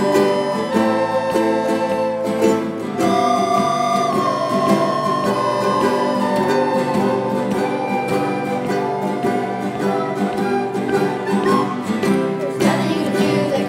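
Student ensemble of acoustic guitars, ukuleles and soprano recorders playing together: a recorder melody in long held notes over strummed chords. The tune ends about a second before the end.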